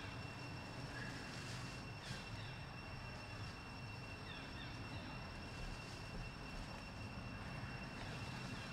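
Outdoor background: a steady low rumble with two thin, steady high-pitched whines and a few faint, short falling chirps.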